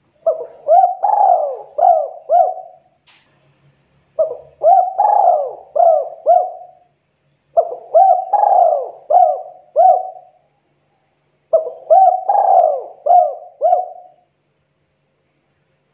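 Spotted dove cooing: four song phrases a few seconds apart, each a run of about five coos.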